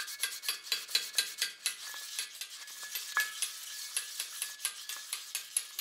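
Light, irregular metal tapping and clicking from several engraving benches worked by hand, a few small strikes a second.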